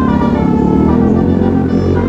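A bus's multi-tone telolet (basuri) musical horn playing a melody in a run of held notes, over a low rumble.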